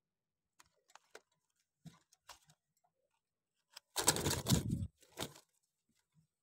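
A caged pigeon flapping its wings: a loud flurry of about a second roughly four seconds in, followed by a short second flutter. A few faint clicks and scratches, like feet and feathers against the cage, come before it.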